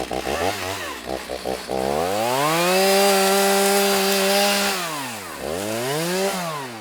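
Chainsaw engine revving: a few short throttle bursts, then held at full speed for about two seconds, dropping back, and revved once more briefly near the end.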